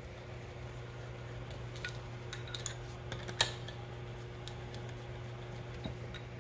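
Small metal clinks and taps of bolts and washers being handled and set into the bolt holes of a Flygt 3152 submersible pump's housing: a few scattered clicks, the loudest about three and a half seconds in, over a steady low hum.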